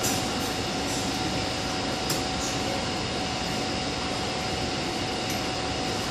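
Steady air-conditioning hum with a faint constant tone, heard inside a stopped MTR M-Train car with its doors open to the platform. A couple of faint ticks sound near the start and about two seconds in.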